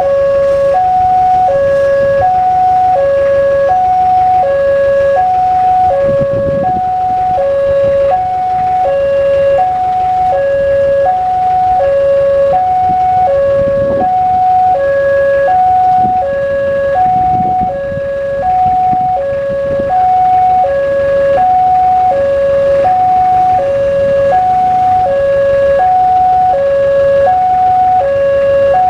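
Railway level-crossing warning alarm sounding from the loudspeaker on the signal mast: an electronic two-tone signal alternating steadily between a lower and a higher note, about one change every three quarters of a second, warning that a train is approaching.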